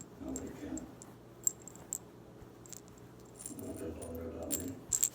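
Hands rubbing dried catnip into plush fish toys: soft rustling in two spells, with a few small sharp clicks.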